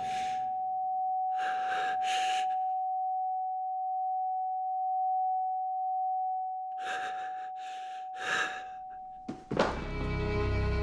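A steady high ringing tone held for about nine seconds under a person's heavy, gasping breaths. Near the end the tone cuts off and a sudden loud bang follows, a pistol shot.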